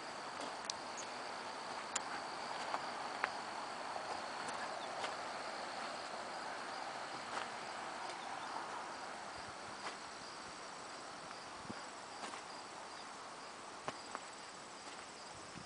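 Footsteps on gravel with a scattering of sharp clicks, over a steady high-pitched insect trill.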